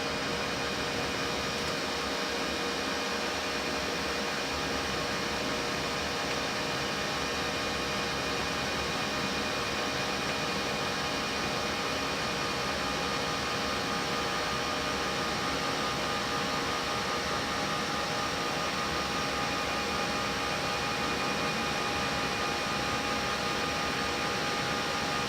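Steady flight-deck noise of an Airbus A320-family airliner in the climb at climb thrust: an even hiss of airflow and air conditioning with several steady hum tones from the aircraft's systems, unchanging throughout.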